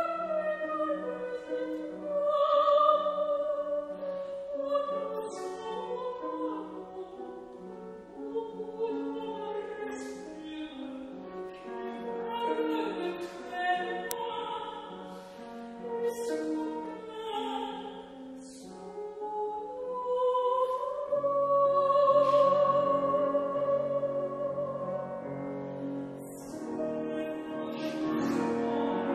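Soprano singing a French art song in operatic style, with vibrato on long held notes, accompanied by piano.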